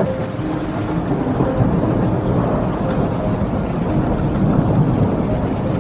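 Thunderstorm: long rolling thunder rumbling over steady rain, swelling twice.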